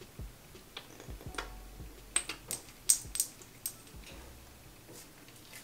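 Small clicks and taps from handling a hyaluronic acid serum bottle, a dozen or so light ticks that come thickest between about two and four seconds in, some with a brief high ring.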